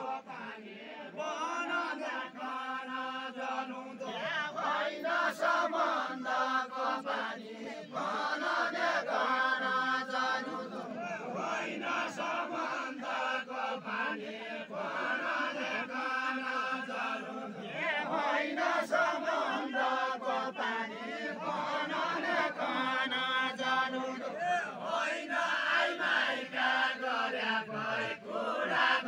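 A large group of men singing a Deuda, the chanted folk song of far-western Nepal, in short phrases with short breaks between them.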